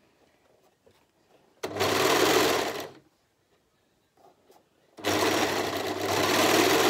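Brother four-thread serger (overlocker) stitching through layered fabric in two runs: a short burst of a bit over a second starting about a second and a half in, a pause, then running again steadily from about five seconds in, with a steady motor hum under the rattle of the stitching.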